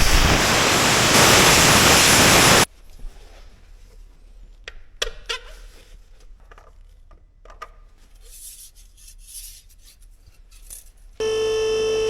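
A loud, steady hiss of a jet of air or spray that cuts off suddenly after about two and a half seconds. Then faint scattered clinks and rubbing, like tools being handled. Steady musical tones come in near the end.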